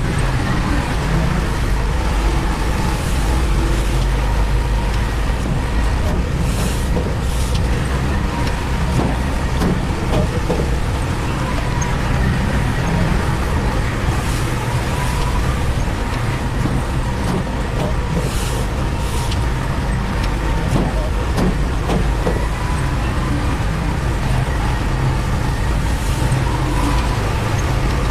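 Heavy construction machinery engine running steadily under load, a continuous low rumble, with brief hissing a few times.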